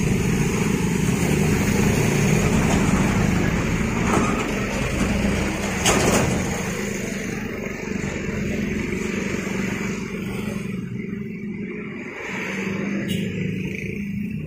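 Close-passing road traffic: motorcycles, cars and a bus going by, with a steady engine hum loudest in the first half and a sharp click about six seconds in.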